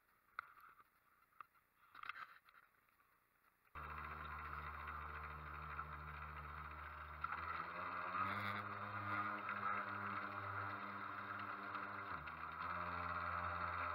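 Radio-controlled model boat's motor running steadily, cutting in abruptly about four seconds in and shifting pitch twice as the throttle changes.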